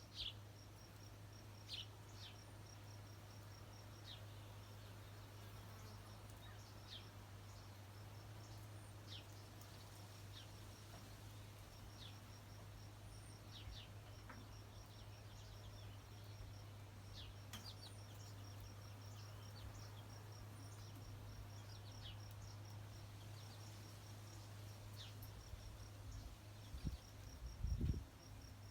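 Faint outdoor ambience: short, falling bird chirps every second or two over a rapid, steady insect trill, with a low steady hum underneath. A brief low bump near the end is the loudest sound.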